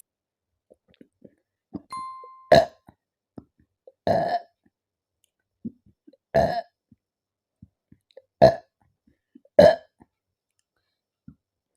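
Five loud burps from a woman full of carbonated Thums Up cola, spaced a second or two apart; the second one is longer and drawn out. A short ding-like tone sounds just before the first burp.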